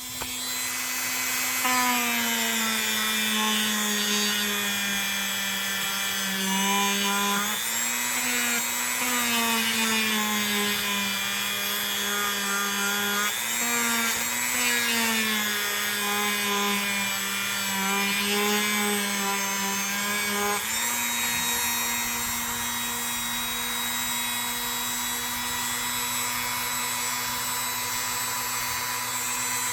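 Small electric power tool running while pressed against the rusty knife to clean it; its pitch sags and wavers under the load. About 21 seconds in it settles into a steady, slightly higher pitch as the load comes off.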